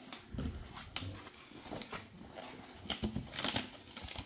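Hands handling a cardboard parcel and crinkling the plastic document pouch taped to it: irregular rustles, scrapes and small knocks, loudest about three and a half seconds in.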